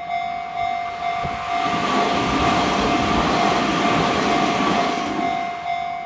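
Japanese level-crossing warning bell dinging steadily about twice a second while a train passes through the crossing. Its rushing, rumbling noise swells about a second and a half in and fades away near the end.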